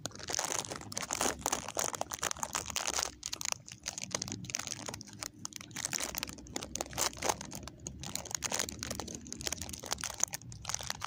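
Plastic snack packaging crinkling and crackling as it is handled and opened, in dense, irregular crackles throughout.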